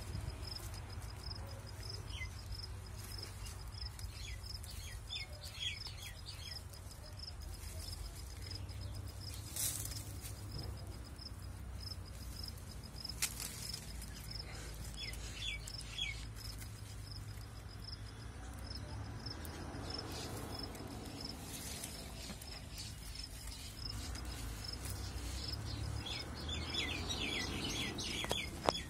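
Insect chirping with a steady, evenly pulsed high note throughout, and small birds giving short runs of high chirps several times, the longest run near the end. A few sharp clicks stand out.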